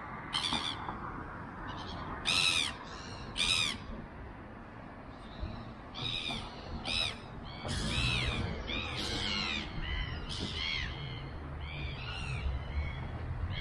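Birds calling: short calls that rise and fall in pitch, a few at first, then many overlapping from about six seconds in. A low rumble comes up underneath from about eight seconds in.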